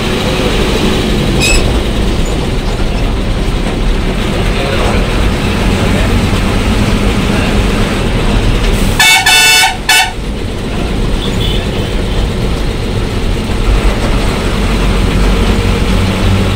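Heavy vehicle's engine running under way, heard loud from inside the bus-style cab beside the engine cover. About nine seconds in, a horn sounds twice: one long blast, then a short one.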